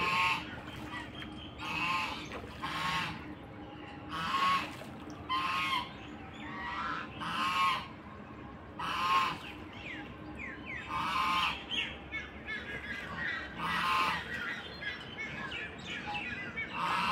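Ducks quacking repeatedly: about a dozen loud, nasal quacks at irregular intervals of one to two seconds.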